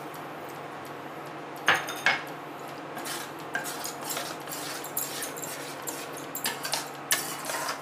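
A spatula stirring thick masala gravy in a stainless steel pan, scraping and clinking against the pan over and over, starting about two seconds in.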